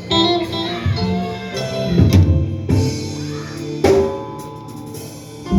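Live church band playing guitar and drum kit, with strong drum hits about two and four seconds in and a quieter stretch near the end.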